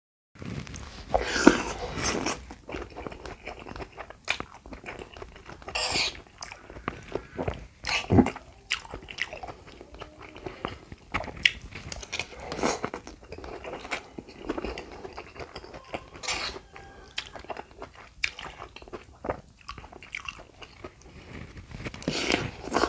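Close-miked eating: a person chewing mouthfuls of lontong padang, rice cake and vermicelli noodles in curry sauce, with irregular wet mouth clicks and smacks, a few louder than the rest.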